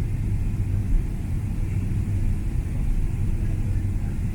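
Airliner cabin noise during the landing: a steady low rumble of the engines and rushing air.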